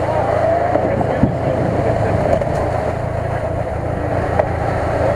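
Lada Niva (VAZ-2121) engine running steadily while the car works through deep mud, its note wavering slightly up and down.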